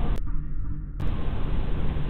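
Steady hiss and low hum from a Xiaomi Xiaofang security camera's microphone. The hiss drops out briefly from about a quarter second to one second in, at a cut between two recordings, then returns unchanged.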